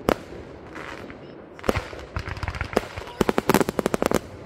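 Fireworks going off: a single sharp bang at the start and another under two seconds in, then a fast run of crackling reports that thickens into a dense volley about three seconds in.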